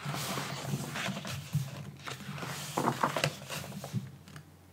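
Paper pages of a soft-cover book being flipped by hand, a rustling, crackling flutter that dies away in the last second or so.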